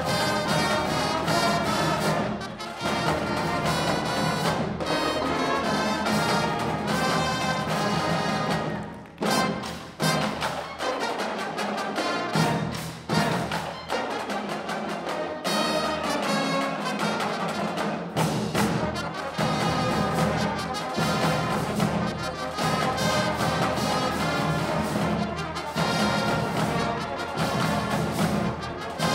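Background music: a brass-led orchestral piece with trumpets and trombones, briefly dropping away about nine seconds in before picking up again.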